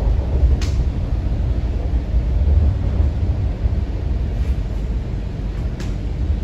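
Steady low rumble inside an MTR Kwun Tong Line C-train running on the track, with two brief sharp clicks, one about half a second in and one near the end.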